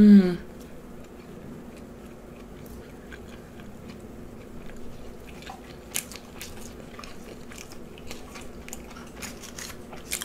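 Close-miked chewing and biting of food, with scattered wet clicks and crunches that come thicker in the second half. It opens with a brief voice sound whose pitch falls.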